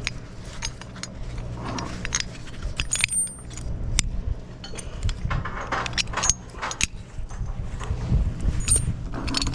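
Rusty steel scaffold couplers and bolts clinking and rattling as they are handled, with many irregular metal clicks, over a steady low rumble.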